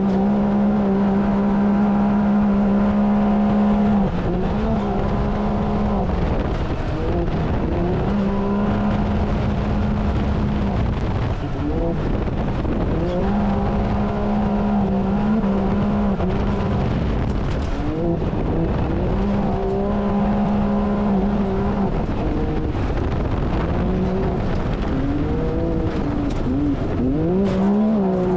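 Can-Am Maverick X3's turbocharged three-cylinder engine racing at full throttle, heard from inside the cockpit. It holds one steady high pitch for a few seconds at a time, then drops and climbs back about five times, as the driver lifts for corners and gets back on the power. Wind and dirt noise run underneath.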